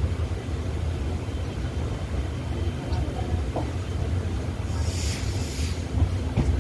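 Passenger train coach running slowly on the rails, a steady low rumble heard through an open window. A brief hiss comes about five seconds in, and a couple of knocks follow near the end.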